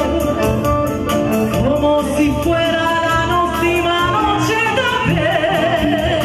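A woman singing live through a microphone, backed by an accordion and an electronic keyboard with a steady drum beat, all amplified through PA speakers. Near the end she holds a long note with vibrato.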